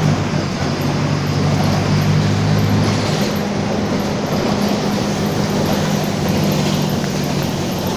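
Mercedes-Benz OF-1722M city bus under way, with a steady droning growl from its differential over the engine and road noise.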